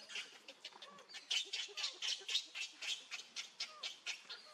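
Baby macaque giving a rapid run of short squawking calls, about five a second.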